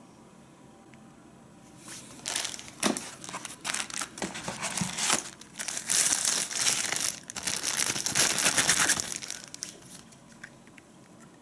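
Thin plastic packaging bag crinkling as hands handle and unwrap it, starting about two seconds in, loudest in the middle, and dying away after about nine seconds.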